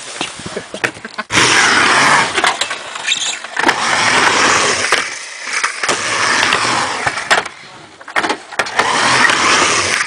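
Skateboard wheels rolling back and forth across a mini ramp, in three long runs of rolling noise with short lulls between them as the rider goes up the walls. A few clacks from the board come near the end.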